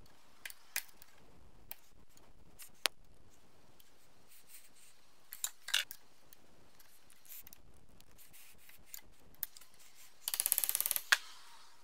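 Flat-blade screwdriver prying and scraping at the rusty steel wire legs of an old food mincer's handle: scattered sharp metal clicks, then near the end a brief rapid rattling scrape ending in a sharp click.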